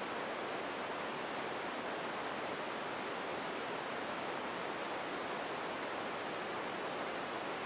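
Steady, unchanging ambience noise, an even hiss strongest in the middle range, with no distinct events: an empty room-tone bed.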